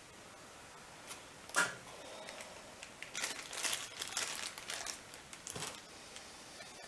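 Hand work on motorcycle parts: a sharp knock about a second and a half in, then a few seconds of small clicks and crinkly rustling as parts and tools are handled.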